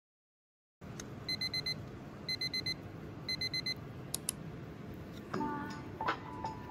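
Electronic alarm beeping in three quick bursts of four beeps, about a second apart, followed by two short high clicks. Light background music starts near the end.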